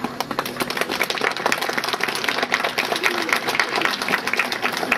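Crowd applauding: many hands clapping densely and unevenly, starting all at once.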